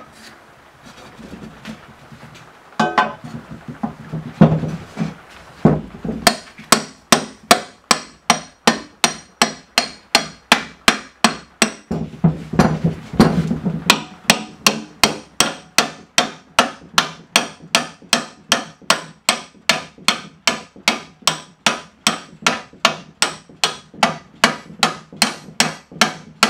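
Hammer driving a black suspension bushing into the eye of a steel lower control arm on a wooden bench. After a few scattered knocks, it strikes steadily at about three blows a second, each hit sharp with a short metallic ring.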